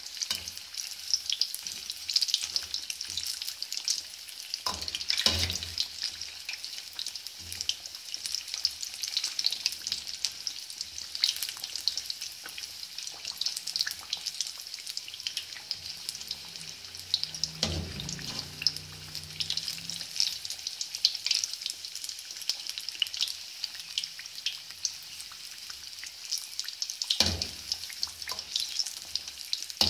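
Battered fish pieces deep-frying in hot oil: a steady sizzle full of fine crackles. A few knocks about 5, 18 and 27 seconds in as the perforated metal skimmer touches the pan.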